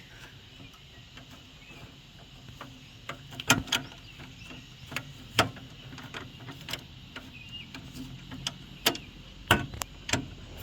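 Irregular metal clicks and knocks from a caravan's fold-away outdoor kitchen being handled, as its legs are folded up and worked into their latched position.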